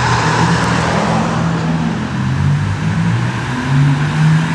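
Engines of a convoy of supercars approaching at low revs, their low note wavering in pitch and rising a little about three and a half seconds in, over road noise.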